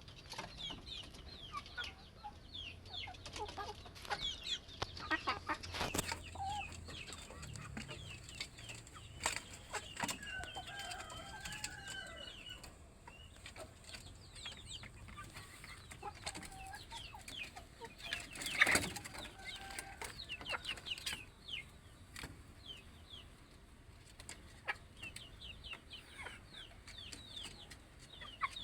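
Village chickens clucking and calling, with many short, high falling chirps throughout and a few sharp knocks, the loudest about two-thirds of the way through.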